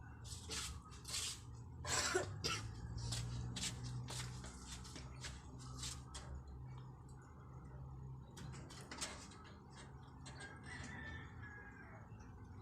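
Fantail pigeon squabs squeaking, a quick irregular series of short, sharp peeps that thins out in the second half, over a low steady hum.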